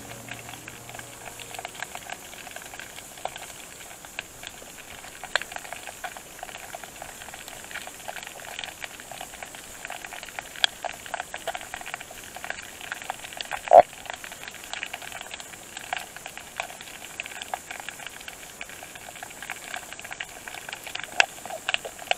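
Underwater ambience heard through an action camera's waterproof housing: a steady crackling hiss dotted with many small clicks and pops, and one louder knock about two-thirds of the way through.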